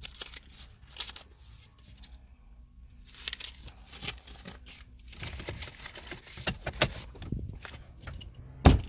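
Rustling, crinkling and clicking handling noises inside a car as things are searched through, then a car door slamming shut with one loud thump near the end.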